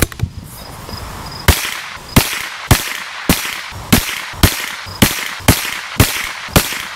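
Ten rimfire rifle shots from a Tikka T1X bolt-action .22LR firing CCI Mini Mag round-nose ammunition, evenly spaced about half a second apart, each a sharp crack with a short ring-out.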